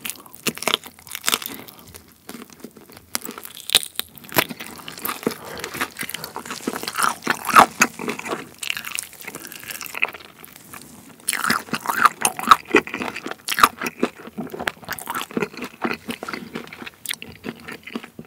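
Close-miked eating sounds: biting into and chewing sauce-glazed fried chicken, with irregular crunching of the fried coating as the meat is pulled off the bone. It quietens near the end.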